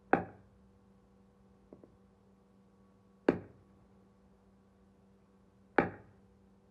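Steel meat cleaver chopping into the end grain of a wooden stump three times, each a sharp strike that dies away quickly, the strikes two and a half to three seconds apart.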